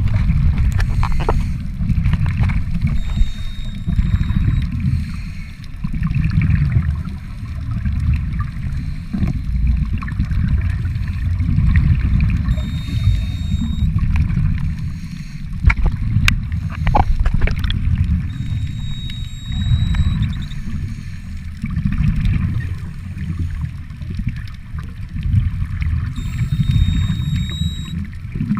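Muffled underwater noise heard through a camera's waterproof housing: a low rumbling and gurgling of water that swells and eases every few seconds, with a few sharp clicks.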